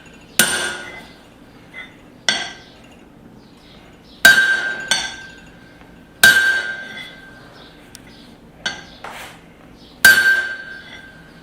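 Hand hammer striking a punch through the hot hammer head's eye over the anvil's hardy hole, driving at the slug, which has sheared but not yet come out. About half a dozen sharp metallic blows at uneven intervals; the loudest ring on with a clear tone.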